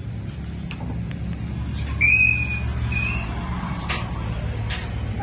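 A bird squawks twice, a loud high call about two seconds in and a shorter, weaker one a second later, over a steady low rumble.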